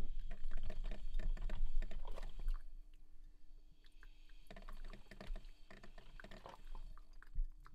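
Irregular clicking and crackling, dense for the first couple of seconds, then sparser, over a faint steady hum.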